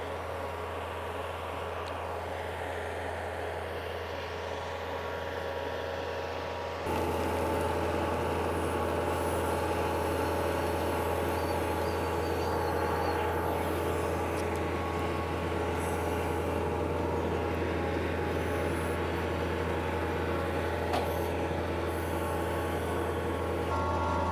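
A compact tractor's diesel engine runs steadily while working a Yanmar B90 backhoe to dig a trench, getting louder about seven seconds in.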